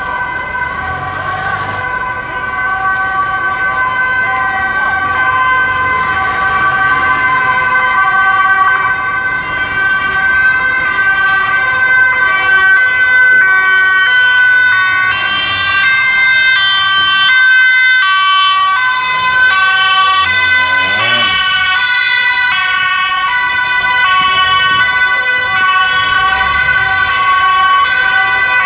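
Emergency vehicle sirens sounding continuously, with their pitch stepping up and down through the second half.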